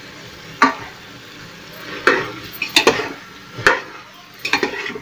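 A spoon stirring boiled potato pieces into masala and oil in an aluminium pressure cooker, knocking and scraping against the pot about five times over a light sizzle.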